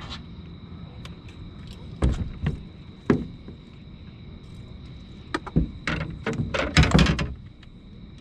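Knocks and thumps on a boat as fishing gear is handled aboard: a few single knocks, then a quick run of heavier thumps in the last few seconds.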